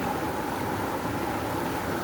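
Rushing river water, a strong current flowing in a steady, unbroken roar of water noise.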